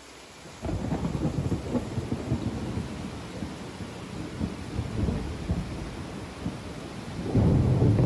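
Thunder rumbling over steady rain in the rainforest. A low rumble sets in suddenly about half a second in, rolls on unevenly, and swells louder near the end.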